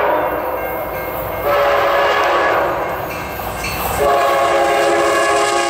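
Locomotive air horn sounding in long blasts, a chord of several steady tones. The blasts restart about a second and a half and about four seconds in, and the pitch begins to drop near the end.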